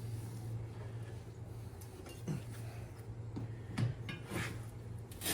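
Metal tire irons clinking and knocking against a motorcycle wheel rim as a tire is levered onto it, a few separate knocks over a steady low hum.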